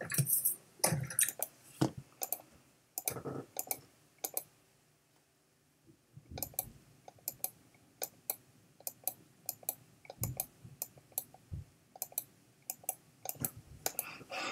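Quiet, irregular clicking at a computer, a few clicks each second, as photos are clicked through one after another. A faint steady hum runs for a few seconds near the middle.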